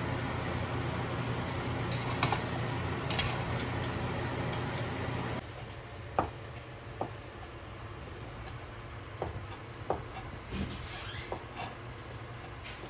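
Steady fan-like background noise that cuts off abruptly about five seconds in. A quieter stretch follows with scattered light clicks and taps, like kitchen utensils being handled.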